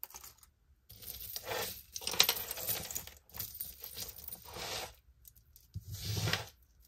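Costume jewelry clinking and rattling as pieces are picked up and set down, in several bursts.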